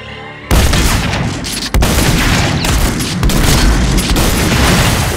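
Heavy shotgun blasts fired in quick succession. They start suddenly about half a second in and go on thickly, with a short break a little under two seconds in.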